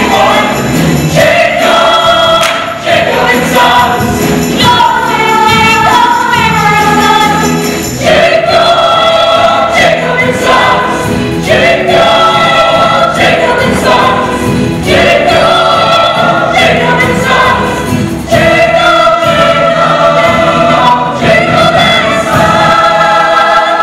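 A chorus of voices singing a musical-theatre show tune together over instrumental accompaniment, in phrases with long held notes.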